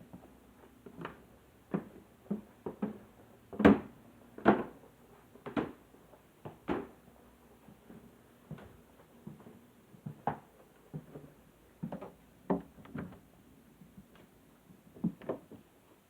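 Irregular sharp taps and knocks, about one or two a second, some much louder than others.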